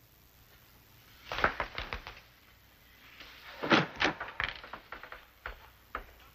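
Footsteps and a door being opened as two people leave a room: scattered knocks and clicks in two clusters, about a second in and again near the middle, with a couple of single clicks near the end.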